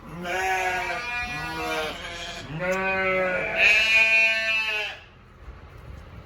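Lambs bleating: several high, wavering calls one after another, stopping about five seconds in.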